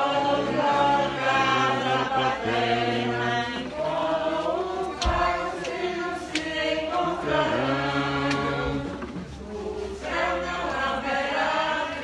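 A choir singing a hymn at the close of Mass, several voices together in held, flowing phrases, with a few sharp clicks partway through.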